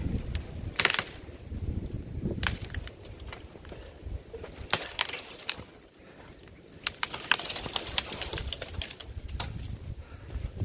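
An axe chopping into a dead, dry pine tree: a series of sharp blows at uneven intervals, one to two seconds apart, with a pause near the middle. Wind rumbles on the microphone underneath.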